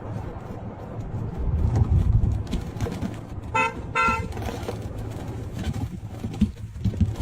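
A vehicle horn toots twice in quick succession, about three and a half seconds in, over a steady low rumble.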